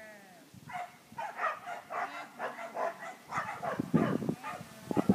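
Dog barking and yipping repeatedly in quick short calls, getting louder near the end.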